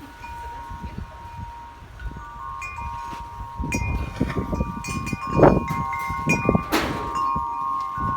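Wind chimes ringing, several long tones sounding one after another, over low rumble and a few knocks, the loudest knocks about five and a half and seven seconds in.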